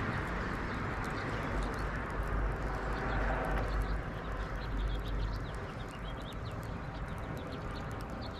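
Wind rumbling on the microphone, with many small high bird chirps scattered through it, thickest in the second half.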